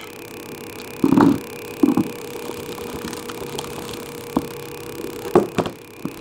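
Potting mix of burnt rice husk, loose soil and guano being tipped from a basin into a plastic flower pot: a few knocks and bumps of the containers being handled, a soft even pour of the medium through the middle, and more sharp knocks near the end.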